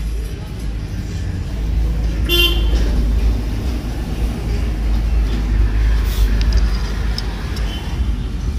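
Steady low rumble of road traffic, with a vehicle horn tooting briefly about two and a half seconds in.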